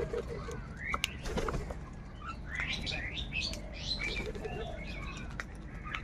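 A flock of house crows calling over one another while feeding, a jumble of short overlapping caws and squawks, busiest in the middle, with a few sharp taps.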